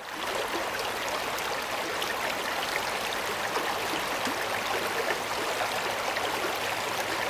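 Shallow stream running fast over rocks: a steady rushing babble with many small splashes, fading in at the start.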